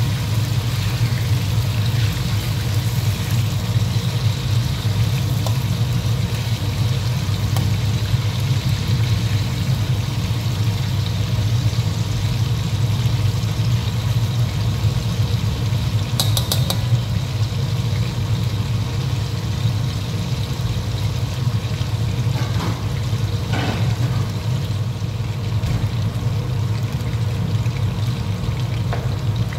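Chicken pieces deep-frying in hot oil in a steel wok: a steady sizzle over a steady low hum. There are a few light clinks and scrapes from a metal spatula, including a brief cluster about halfway through.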